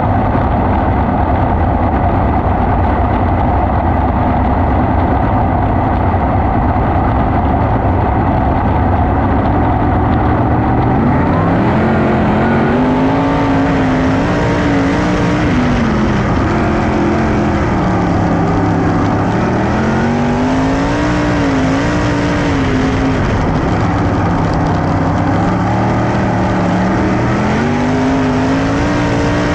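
410 sprint car engines running on a dirt track. At first it is a steady drone. From about 11 seconds in the pitch rises and falls over and over as the throttle is opened and lifted.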